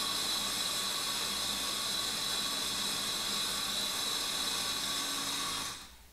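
A cordless Milwaukee Fuel right-angle impact wrench hammering steadily in reverse on a nut torqued to 220 ft-lbs, for about six seconds, until the nut breaks free and the tool stops near the end.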